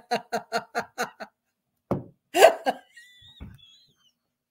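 A woman laughing: a quick run of short ha-ha pulses for about a second, then one stronger laugh about two seconds in.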